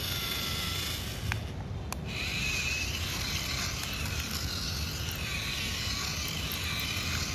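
Small electric motors and plastic gears of a remote-control transforming robot car whirring steadily as it unfolds from car into robot, growing louder about two seconds in.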